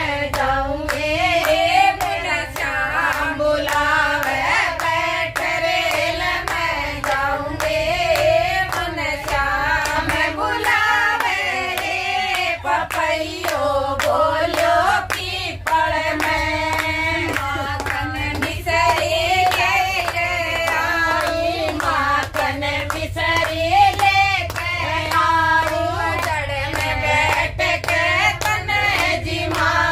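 Several voices singing a song together, with steady rhythmic hand clapping.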